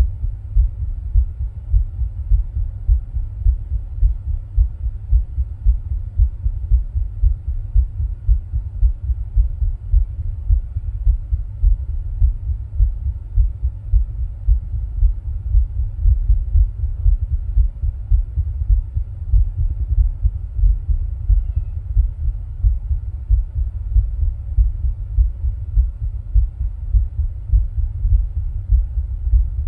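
A human heartbeat picked up close to the chest, as a steady run of regular low thumps, recorded while the person rebreathes air from a plastic bag.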